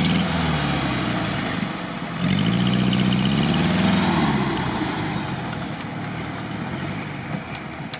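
ZAZ 968M's rear-mounted air-cooled V4 engine running close by. It is revved up about two seconds in, held for a couple of seconds, then eases back down and gets gradually quieter.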